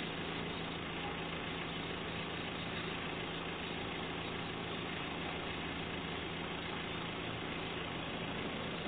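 Engine of a truck-mounted hollow flight auger drill rig running steadily, at an even pitch and level.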